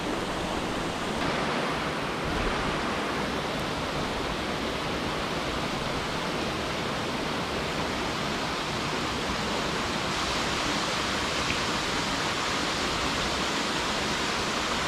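Mountain stream cascading over boulders: a steady, even rush of falling water.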